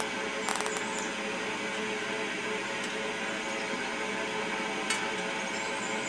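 Steady hum of a power-vent water heater's exhaust blower running. About half a second in comes a quick run of ratcheting clicks, a zip tie being pulled tight around fiberglass insulation, and there is a single click near five seconds.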